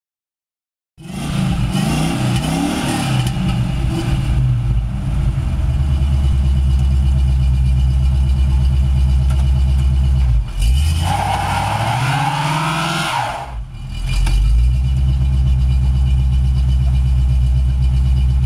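Oldsmobile 442's V8 starting about a second in and revving hard, its pitch climbing twice with a brief drop between, then held at high revs through a burnout, the rear tyres spinning and smoking.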